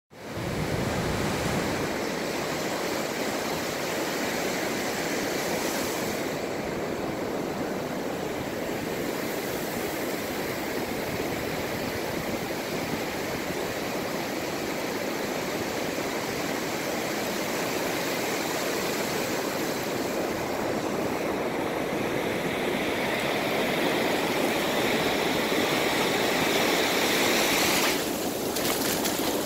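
Ocean surf washing up a sandy beach: a steady hiss of breaking waves and shallow water running over the sand. It swells louder in the last few seconds as foam washes in close, then drops off sharply just before the end.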